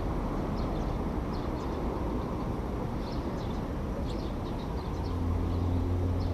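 Swifts giving short, high calls, scattered irregularly, over a steady low rumble; a low steady hum joins about five seconds in.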